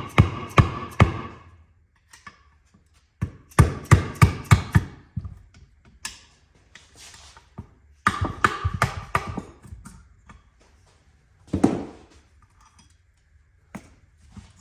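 Hammer blows on the metal parts of an M21 Muncie four-speed transmission while it is being taken apart, knocking its front cover and parts loose. The blows come in three quick bursts of several ringing strikes each, followed by two single knocks near the end.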